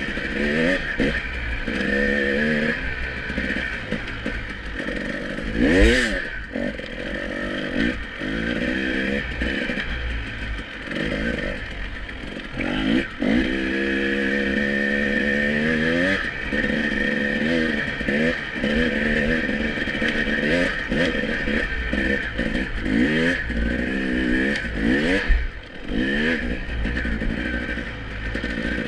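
2018 KTM EXC 300 TPI's single-cylinder two-stroke engine revving up and down over and over as the dirt bike is ridden, with a couple of sharp knocks along the way.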